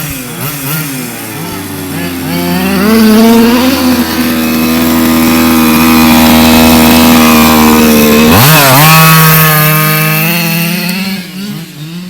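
Buzzing RC car motor running at a steady high pitch, then sweeping up sharply in pitch about eight seconds in as it revs, and running on steadily.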